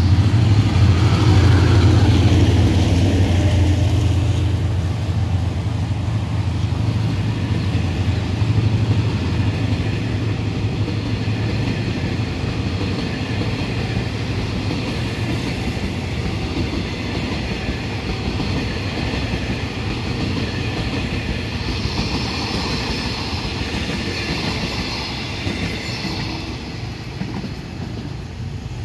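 Thai Hitachi diesel-electric locomotive passing close, its deep engine hum strongest in the first few seconds. Then a long train of passenger coaches rolls by with steady wheel-on-rail noise and a higher ringing for a few seconds late on. The sound fades slowly as the tail of the train moves away.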